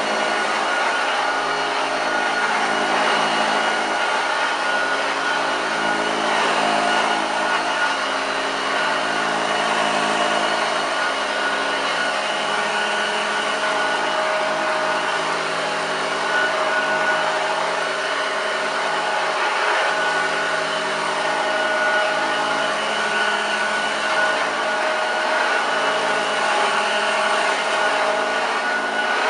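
1975 Hoover Junior 1346A upright vacuum cleaner running on carpet, its motor and brush roll giving a steady whine with only slight wavering in pitch and level.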